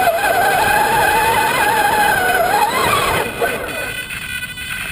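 Electric motor and gearbox whine of a Traxxas Summit RC truck driving over sand, its pitch wandering up and down with the throttle, then easing off about three seconds in.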